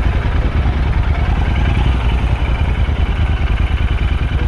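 Royal Enfield Interceptor 650 parallel-twin motorcycle engine running steadily, a deep even pulse without any revving.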